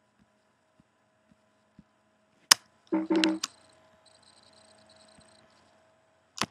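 Two sharp clicks from operating the computer, one about two and a half seconds in and another near the end, over a faint steady hum. Just after the first click comes a short, louder burst with a low pitch to it.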